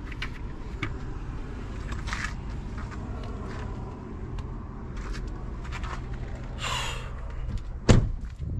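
A car door slammed shut about eight seconds in, the loudest sound. Before it there is a steady low hum, scattered light clicks and handling noise, and a brief rushing sound just before seven seconds.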